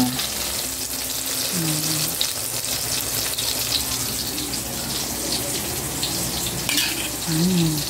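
Eggplant slices frying in hot oil in a pan: a steady sizzle with small crackles. Near the end, metal tongs clink against a stainless steel plate.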